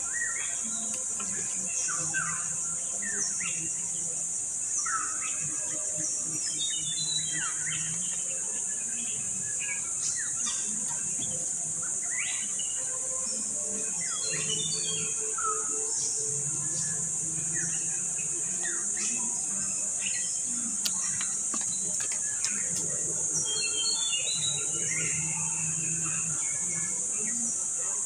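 Steady high-pitched drone of insects, with short bird chirps and calls scattered through it.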